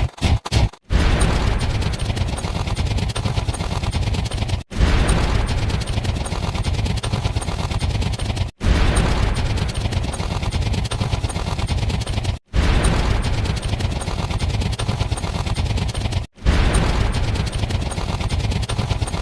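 Sound effect of sustained rapid gunfire, a loop about four seconds long that cuts out briefly and restarts about every four seconds.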